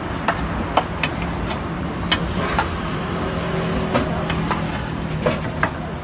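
Cleaver chopping a rolled egg crepe into slices on a flat steel griddle: about ten sharp metal knocks at uneven spacing as the blade strikes the griddle, over a steady low hum.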